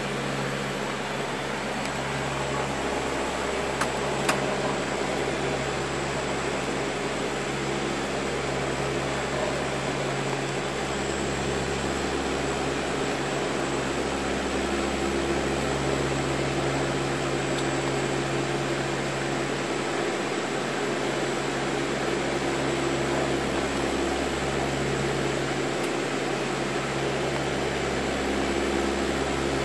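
Steady cockpit drone of a Lockheed L-188 Electra's four Allison 501 turboprops at climb power: a continuous low hum over even rushing noise, slowly swelling and fading.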